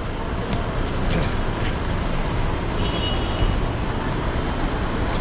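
Steady road traffic noise from a busy street: vehicles and buses passing, heard as a continuous low rumble.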